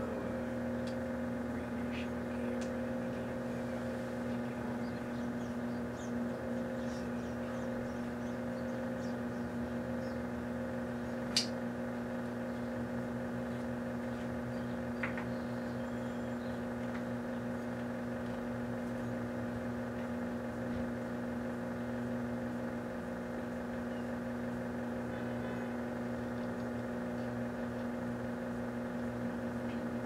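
Large, powerful microwave oven running with a steady electrical hum while it blasts a fluorescent black-light tube. One sharp click comes about eleven seconds in, and a fainter one a few seconds later.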